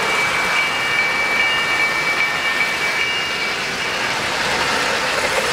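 O-gauge three-rail model train rolling along its track with a steady running noise from wheels and cars. A thin, steady high whine sounds over it for the first three seconds or so, then fades.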